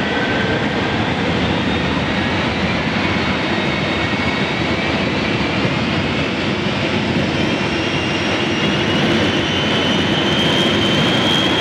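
The Shockwave jet truck's three turbojet engines running at high power: a loud, steady jet noise with a whine that climbs slowly in pitch as the engines spool up.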